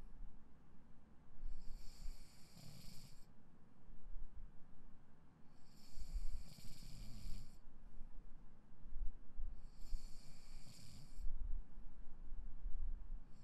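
A sleeping person snoring with slow, even breaths: three snores, about one every four seconds, each a low rattle with a breathy hiss.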